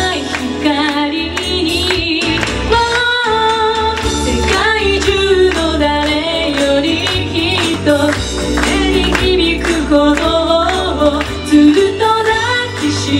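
Live J-pop ballad duet with instrumental accompaniment. A woman sings into a handheld microphone and is joined by a man's voice within the first few seconds. A bass line comes in at the start.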